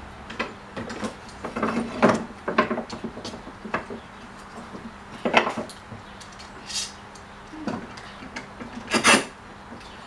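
Irregular knocks and clatters of a wooden board and a metal bar clamp being handled and set up on a wooden workbench, with a slightly longer scraping clatter near the end.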